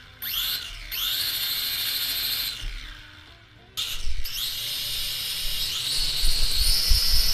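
Small toy quadcopter's electric motors whining as the propellers spin up. The high whine rises in pitch and holds, dies away about three seconds in, then starts again and climbs higher, with a few low knocks near the end.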